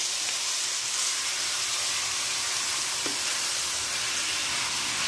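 Raw, spice-coated chicken pieces sizzling steadily in hot olive oil in a skillet as they are stirred around.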